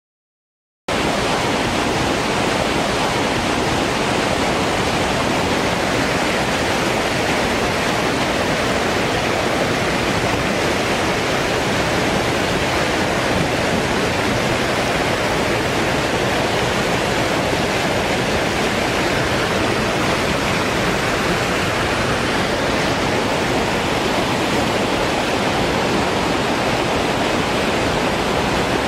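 Waterfall in flood, swollen after heavy rain, sending a loud, steady rush of falling and churning water; the sound cuts in abruptly about a second in.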